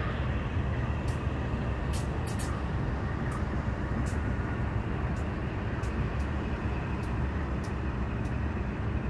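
Union Pacific and BNSF diesel-electric locomotives rolling past as a light engine move: a steady low engine and wheel rumble, with a few faint scattered ticks.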